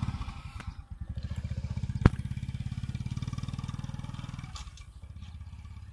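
A small engine running with a rapid, even pulsing, which drops off about four and a half seconds in. A single sharp knock about two seconds in.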